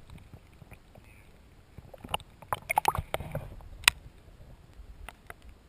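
Lake water sloshing and splashing against a camera held at the surface, with a cluster of sharp knocks and clicks between about two and four seconds in, the loudest near the end of that cluster.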